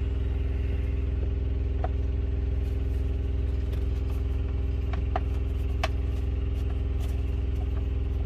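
An engine idling, a steady low hum with a few fixed tones, with a few faint light clicks of small parts being handled.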